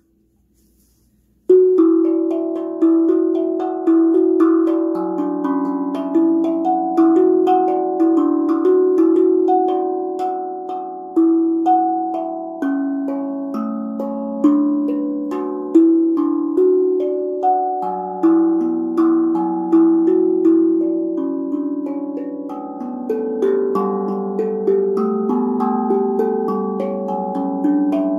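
BeatRise 13-inch, 15-note carbon-steel tongue drum played with oval-tipped mallets, starting about a second and a half in. It is an improvised melody of single struck notes, each ringing on and overlapping the next.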